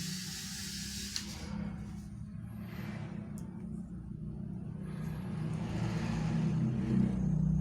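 Small electric toy-robot motors running with a steady low hum, getting louder near the end.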